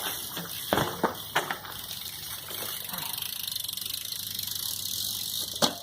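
BMX bike hitting the ground on a failed trick attempt: three sharp knocks in quick succession, then a steady rushing of the tyres rolling, and one more sharp knock near the end.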